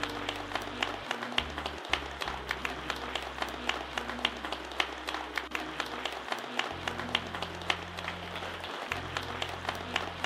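A small group of people clapping, many quick irregular hand claps, over background music with held low notes that change every few seconds.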